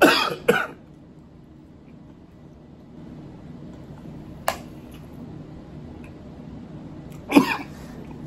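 Close-miked eating of steak: two short, loud mouth sounds as the steak is bitten into, a single sharp click about halfway through, and another loud mouth or throat sound near the end.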